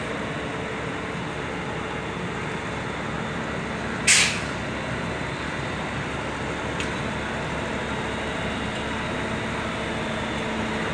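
Railway overhead-line tower car's engine running steadily as the car creeps along the track. A short, loud hiss about four seconds in.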